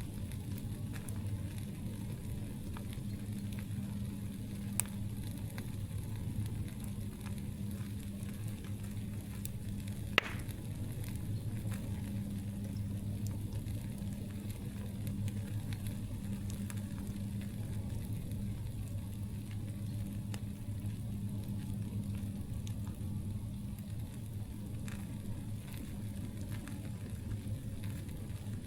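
Campfire crackling steadily over a low rumble, with many small ticks and two sharper pops, about five and ten seconds in.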